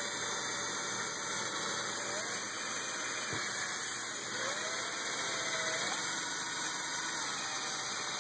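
Cordless drill running steadily as it bores a hole through a thin plastic sensor case, its motor pitch rising and dipping a few times with the trigger and load.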